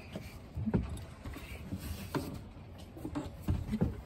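Irregular hollow knocks and thumps of someone moving about and handling gear in a fiberglass sailboat cockpit, over a steady low rumble of wind on the microphone.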